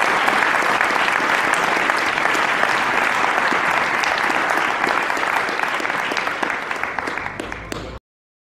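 Large audience applauding, a dense patter of many hands clapping that thins out and gets quieter in the last couple of seconds, then cuts off suddenly near the end.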